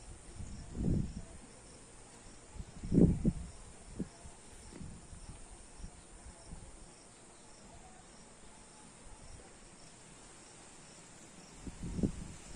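Insects chirping: a faint high chirp repeating at an even pace. Brief low rumbles on the microphone come and go, the loudest about three seconds in and again near the end.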